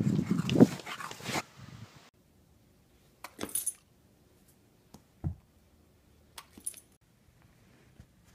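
A bulldog running up over leaf-littered ground, with loud scuffling and breathing noise that stops abruptly about two seconds in. After it come a few faint, short dog sounds in a quiet room.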